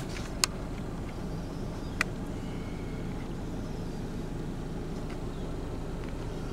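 Steady low rumble of a car's engine and road noise heard inside the cabin while driving, with two short sharp clicks about half a second and two seconds in.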